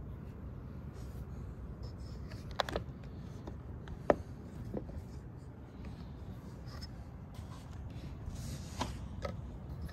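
Steady low rumble of storm wind and rain, with a handful of sharp taps and clicks scattered through it, the loudest about four seconds in.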